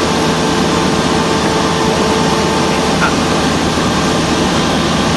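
Cessna 172's piston engine and propeller running steadily, heard inside the cabin as a loud, even drone with a faint steady hum.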